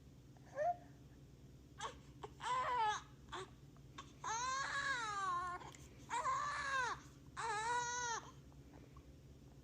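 Recorded infant crying played by the Inercia Labs Reborn Life System sound unit inside a reborn baby doll. A few short fussy sounds come first, then a short cry and three longer cries, each rising and then falling in pitch.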